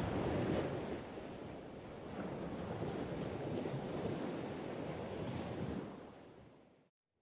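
Wind buffeting the camera microphone, a rough low rushing with waves on the open water beneath, fading out to silence near the end.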